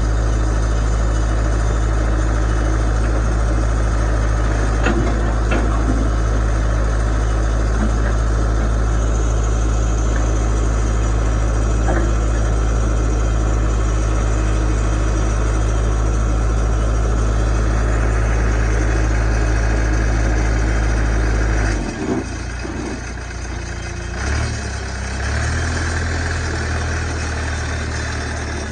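New Holland 555E backhoe loader's diesel engine idling with a steady low hum. About three-quarters of the way in, the engine note changes and becomes quieter.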